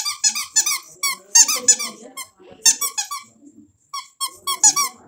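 A squeaky duck dog toy squeezed by hand over and over, giving short high squeaks in quick runs with brief pauses between them.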